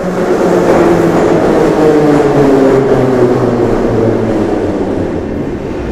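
Moscow Metro 81-717 'Nomernoy' train running into the station. Its traction-motor whine falls steadily in pitch as it slows, and the noise fades toward the end.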